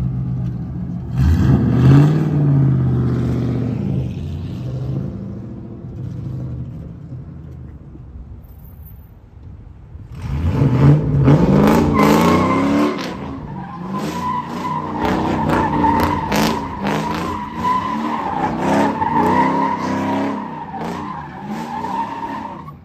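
LS V8-swapped Nissan 240SX drift car revving hard as it pulls away about a second in, dying down for a few seconds, then revving again. It then drifts with a long, steady tire squeal while the engine revs rise and fall underneath.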